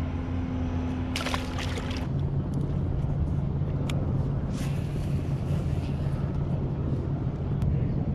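A boat's engine running steadily nearby, a low drone that drops in pitch about two seconds in. A brief splash about a second in, as a released fish goes back into the water.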